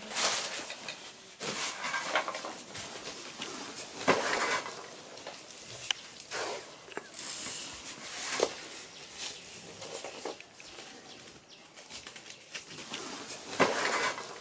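Dry black granules being scooped by hand and poured into cardboard firework tubes standing in a basin: rustling and pattering in bursts a couple of seconds apart, with a few light clicks.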